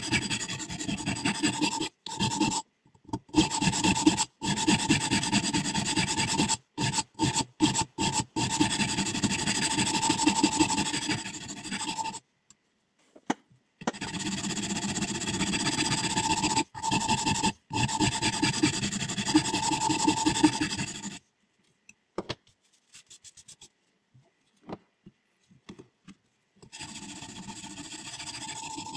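Sharpening stone on a guided scissors-sharpening system rubbing back and forth along a scissor blade in quick repeated strokes, with a faint steady ring. The strokes cut off abruptly about twelve seconds in, and again a few seconds later, then resume near the end.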